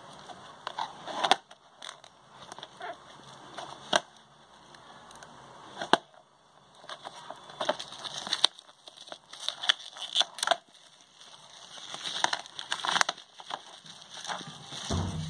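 Thin plastic shrink-wrap crinkling and crackling in irregular clusters as it is torn and peeled off a Blu-ray case, with light clicks of the plastic case being handled on a wooden table.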